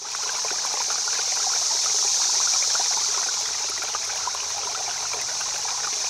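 Running water of a stream, a steady babbling rush that fades in at the start and fades out at the end.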